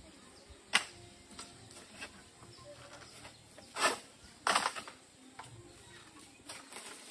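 A long-poled egrek sickle being pulled through an oil palm's crown to cut fronds and fruit: a sharp snap about a second in, then two louder rustling swishes of palm leaves about four seconds in, with smaller rustles after.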